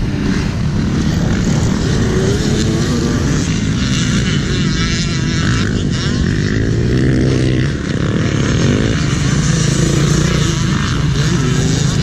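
Dirt bike engines revving, their pitch rising and falling repeatedly as the throttle opens and closes.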